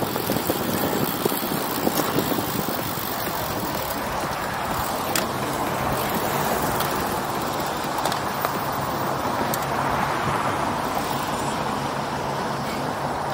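Steady rush of wind over the microphone and tyre hum on the pavement from a road bicycle riding at speed.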